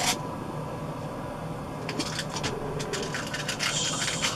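Small metal airgun pellets being handled in a metal tin: a click at the start, then from about two seconds in a run of light ticks and a brief rattle as pellets are picked out.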